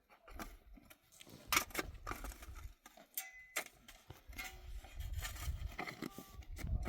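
Irregular sharp clicks and knocks, the loudest about a second and a half in and again about three and a half seconds in, over a low rumble that grows stronger in the last couple of seconds.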